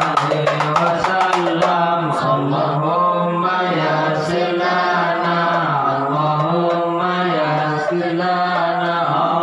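Hand frame drums beat rapidly for about the first second and a half, then stop. A group of male voices carries on alone, chanting an Islamic devotional song (shalawat) in long, gliding lines, amplified through a microphone.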